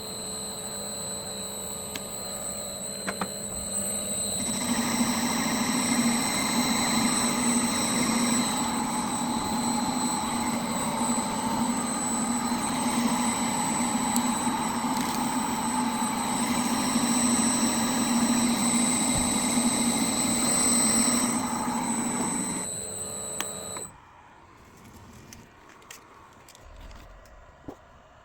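Homemade metal lathe running with a steady high whine. A louder, rougher noise with a low hum comes in about 4 s in and drops away around 22 s, and the machine stops about 24 s in.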